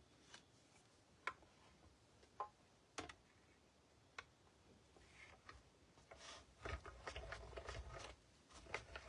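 A few light clicks and taps as the cutting plates are handled and set on the platform of a hand-cranked die-cutting machine. About two-thirds of the way in, a denser, low, continuous noise with small clicks begins as the crank is turned and the plates start to feed through the rollers.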